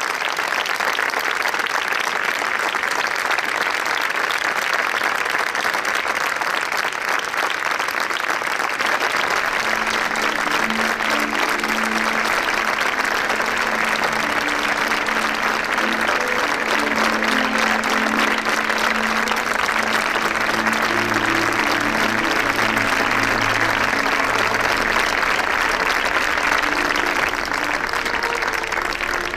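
A large audience applauding steadily. From about ten seconds in, low held musical notes sound under the clapping.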